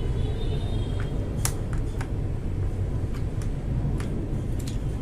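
Scattered, irregular clicks of keys being pressed on a mechanical keyboard fitted with Akko Matcha Green switches. A steady low rumble of road traffic runs underneath them.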